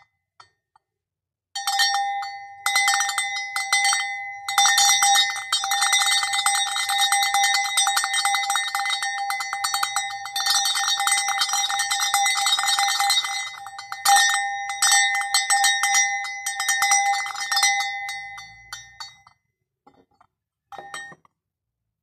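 Small bronze cowbell-style bell, about 65 mm tall, shaken by hand so its clapper strikes rapidly and continuously, giving a steady clanging ring with one clear pitch and a higher overtone. The shaking breaks off briefly a few times and stops about 19 seconds in, with one short ring near the end.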